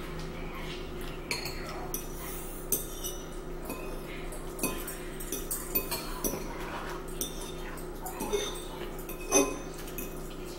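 Metal forks clinking and scraping against ceramic bowls of spaghetti and meatballs: a scatter of short, sharp clinks at irregular intervals, the loudest one near the end, over a steady low hum.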